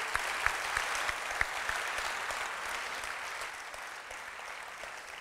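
Audience applauding, with the clapping gradually dying away toward the end.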